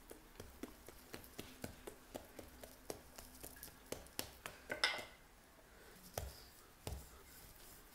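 Hands patting and pressing a ball of soft bread dough flat on a granite countertop: a run of quick, light pats, about four a second, then a louder brief scuff about five seconds in and two duller thumps near the end.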